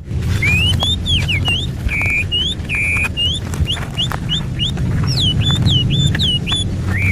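A songbird singing a quick series of clear whistled notes, mostly short upslurs, with two longer level notes about two and three seconds in. Under it are a steady low rumble and scattered sharp clicks.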